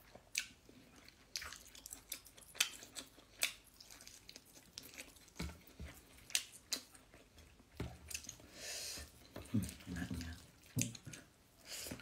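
Close-up chewing and mouth sounds of a person eating spicy chicken and rice: irregular sharp, wet clicks and smacks, with a brief spoken word near the end.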